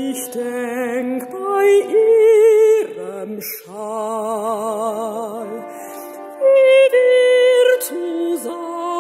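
A mezzo-soprano sings long phrases with a wide vibrato, accompanied by a church organ holding steady chords.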